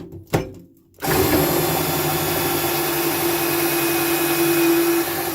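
Power drill spinning a Speed Out screw extractor bit against a stripped security screw, with a couple of clicks as it is set in place, then running steadily for about four seconds before stopping suddenly.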